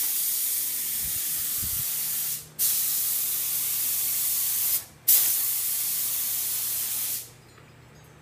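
Siphon-feed air spray gun spraying paint: three hissing bursts of about two seconds each as the trigger is pulled and let go, stopping a little before the end.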